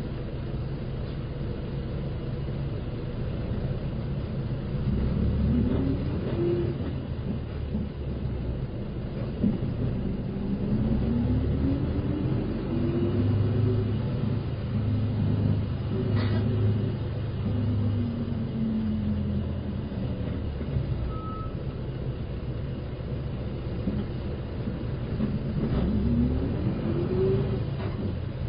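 Diesel engine of a Shimotsui Dentetsu city bus heard from inside the cabin, running with a low rumble and rising in pitch several times as it accelerates, then easing off. There are a couple of faint clicks, and a short beep about three-quarters of the way through.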